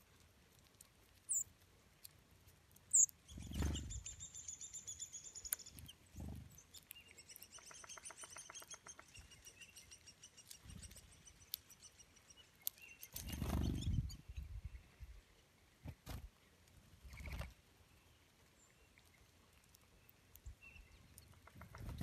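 Small songbirds calling at a feeder: a couple of sharp high chip notes, then a run of rapid twittering. A few soft wing flutters come as birds land and take off.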